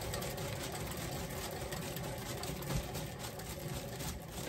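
Paint-pour spinner turning a freshly poured canvas at speed, a steady mechanical whirring rattle that stops suddenly near the end.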